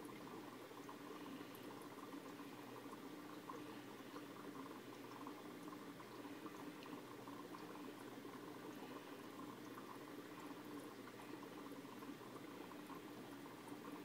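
Faint, steady bubbling water with a low hum from aquarium equipment.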